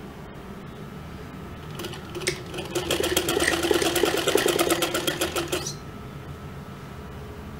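MIECO sewing machine stitching a seam: a click about two seconds in, then a rapid, even clatter of stitches for about three seconds that stops suddenly.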